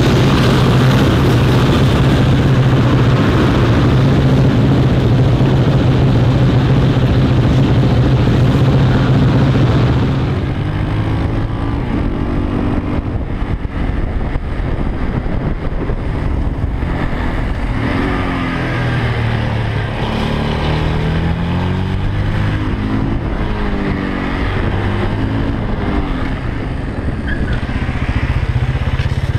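KTM LC4 single-cylinder four-stroke supermoto engine, ridden on track. It holds a steady pitch for about the first ten seconds, then rises and falls repeatedly as the rider accelerates and closes the throttle through corners.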